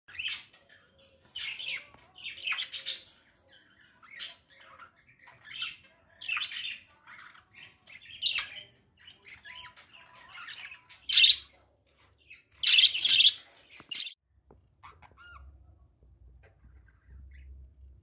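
Budgerigars chattering: a run of short, high chirps and squawks about one every second, with two loud harsh bursts about two-thirds of the way through, then dying down to a few faint chirps.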